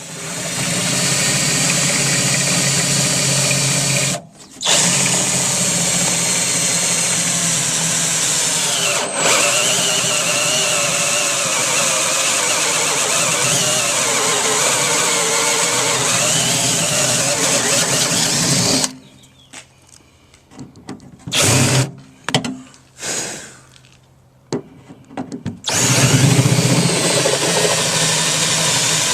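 Cordless drill running and drilling holes in the steel of a car door, in long steady runs with a brief stop about four seconds in. Past the middle it runs in short stop-start bursts for several seconds, then runs steadily again near the end.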